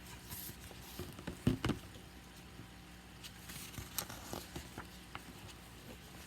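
Faint rustling and scraping as the pages of a picture book are handled, with scattered light clicks and a soft knock about a second and a half in.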